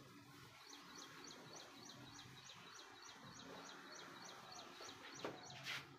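Faint, rapidly repeated high chirps from a bird, about four a second, over a soft background hiss.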